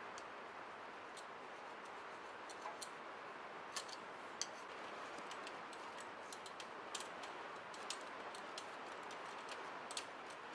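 Faint, irregular light clicks of a scraper on a cast iron engine block's intake mating surface as old gasket material is cleaned off, over a steady low hiss.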